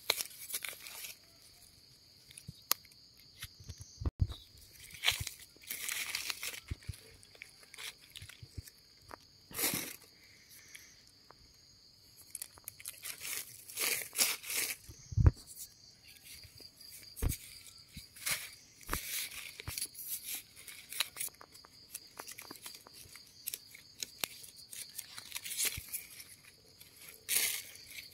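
Dry leaf litter and soil rustling and crunching in scattered bursts, as hands and a digging tool work around termite mushrooms on the forest floor. A steady high insect trill runs underneath.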